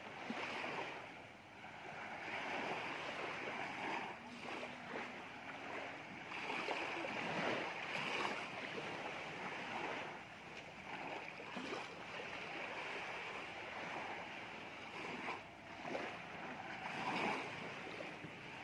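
Small waves washing up onto a sandy beach, each wash swelling and then fading, every few seconds.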